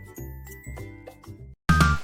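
Background music with plucked notes. It cuts out briefly near the end, then a louder, brighter passage of chiming tones starts.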